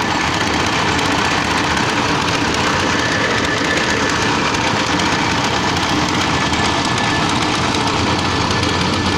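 An engine running steadily at a constant speed, with a faint high whine now and then.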